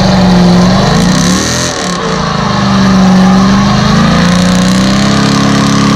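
Car engine revving hard during a burnout, held at high revs while the rear tyres spin. The revs dip briefly about a second and a half in, then climb back and hold.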